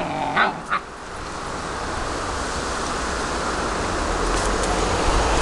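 German Shepherd puppies giving three short yips in the first second, then a steady rushing noise that slowly grows louder.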